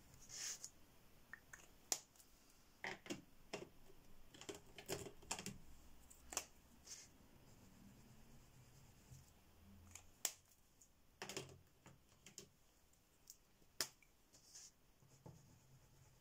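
Faint, scattered clicks and taps of plastic Shuttle Art gel crayons and their caps being handled, with short stretches of soft scrubbing as a water-based gel crayon is rubbed onto paper.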